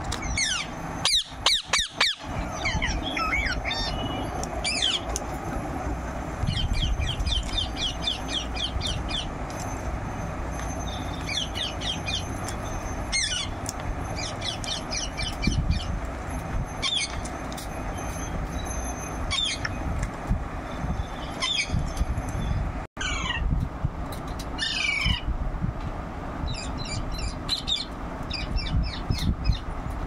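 Rose-ringed parakeet calling in bursts: sharp falling squawks and fast runs of clipped chirping notes, the loudest squawks about a second in.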